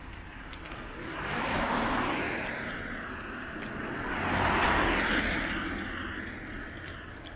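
Road traffic: two vehicles pass close by, the first swelling and fading about two seconds in, the second, louder, about four to five seconds in, over a steady background of street noise.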